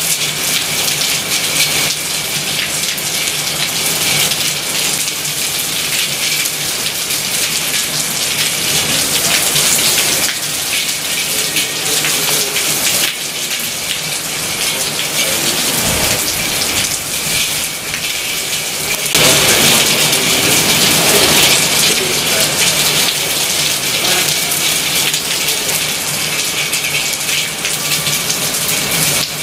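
Heavy thunderstorm rain pouring down as a dense, steady hiss, shifting abruptly in level a few times.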